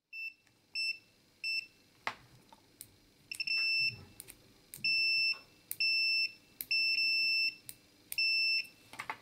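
Aidbucks MS8232 pocket multimeter's continuity buzzer beeping at one high pitch: three short beeps, then five longer beeps, with faint clicks of the metal probe tips touching.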